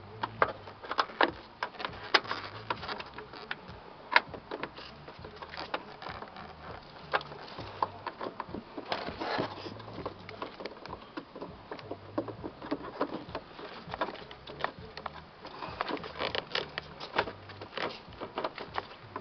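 Irregular clicks, taps and knocks of plastic parts being handled as a turn signal lamp and its connector are pushed back into place.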